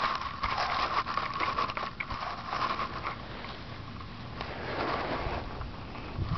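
Dry grass blades rustling and crackling right against the microphone, with many small irregular clicks.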